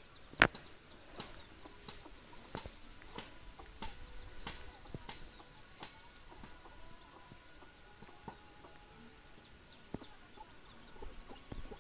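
Rural outdoor ambience: a steady high-pitched insect drone, faint chicken clucking, and scattered light clicks, the loudest about half a second in.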